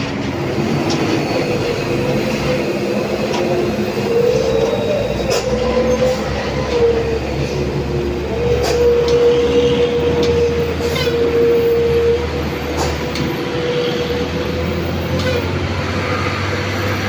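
A heavy vehicle's engine labouring up a steep climb: a loud, continuous low rumble with a steady whine that wavers in pitch.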